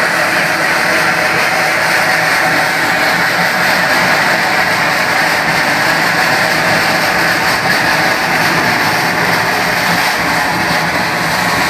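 A bong fai dok, a hand-packed gunpowder fountain firework, burning steadily and spraying a column of sparks upward with a continuous loud rushing hiss.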